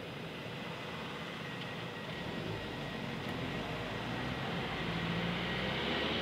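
Cars driving past close by on an asphalt road, engines and tyres growing gradually louder toward the end, over a steady hiss.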